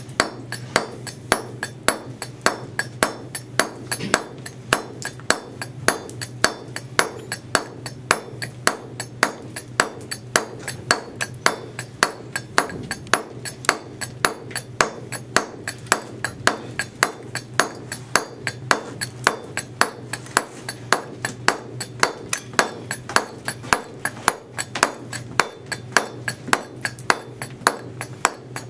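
Stonemason's claw chisel struck steadily with a mallet, about three blows a second, as it is worked across a stone chamfer to clear off the waste.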